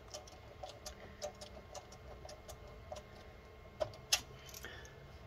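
Faint, irregular small clicks and ticks of a screwdriver working screws back into a desktop PC's power supply mounting, with two louder clicks about four seconds in.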